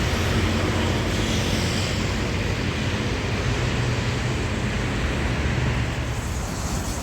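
Engine of a rail engineering maintenance vehicle running with a steady low hum during shunting.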